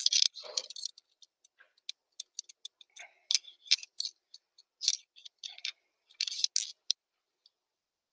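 Computer keyboard and mouse clicking irregularly, a scatter of sharp taps with short pauses, while a technical fault is being fixed at the computer. The clicks die out about seven and a half seconds in.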